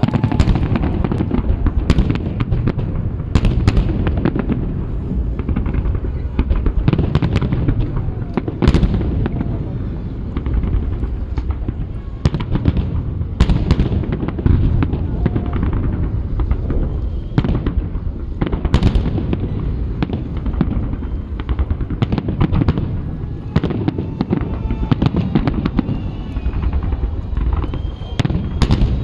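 Aerial fireworks shells bursting one after another: many sharp bangs at irregular intervals, some in quick clusters, over a steady low rumble of rolling booms.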